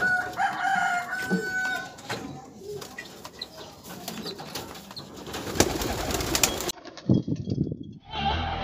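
Pigeons cooing and calling, with scattered knocks and rattles from the wire loft cage being handled. Guitar music starts near the end.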